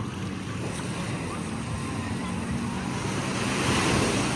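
Beach surf washing in, with wind on the microphone, swelling louder about three and a half seconds in as a wave comes up; a low steady hum runs underneath.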